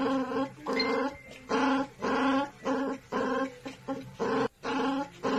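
Shih-poo dog giving a string of short pitched vocal calls, about two a second, in a sing-song rhythm.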